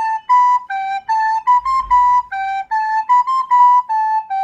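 Plastic soprano recorder playing a simple stepwise melody, each note started separately with a short break between them.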